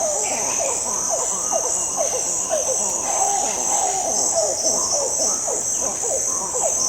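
A troop of monkeys calling together: many short, overlapping calls, each sliding down in pitch. Behind them runs a steady, high-pitched buzzing of forest insects.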